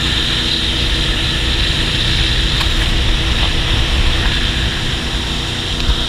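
Motorboat underway: the engine runs with a steady low drone under a constant rush of wind and water.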